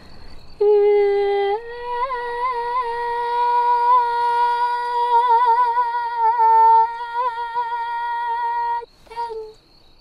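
A woman singing solo and without words in Sakha shamanic style: long held notes decorated with quick trill-like flicks in pitch, stepping up a notch about a second and a half in. The held line breaks off near the end, followed by a short closing phrase.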